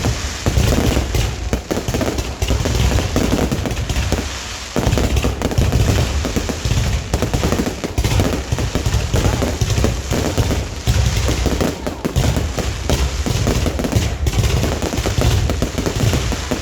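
Fireworks going off in a dense, continuous barrage of overlapping bangs and booms, with a brief lull about four and a half seconds in.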